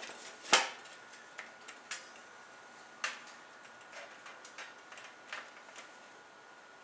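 Knocks, clicks and taps of a security DVR's case cover being handled and fitted back onto the unit by hand, with one sharp knock about half a second in and lighter clicks after. The cover will not seat because it is being put on backwards.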